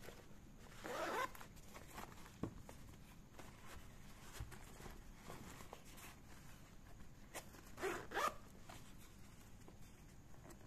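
Zipper of an Eiger Clutch 1.0 waist bag being pulled along its track: two zips, about a second in and again near eight seconds, with light handling clicks of the bag between.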